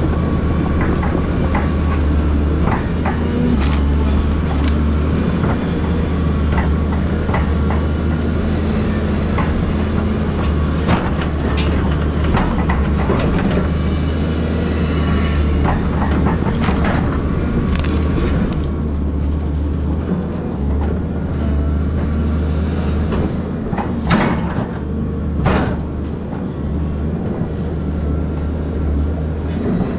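Volvo EC220DL excavator's diesel engine running steadily under load, with its hydraulics working as the stick rake drags and rakes stump debris, rattling and clanking. Two sharp knocks stand out late on.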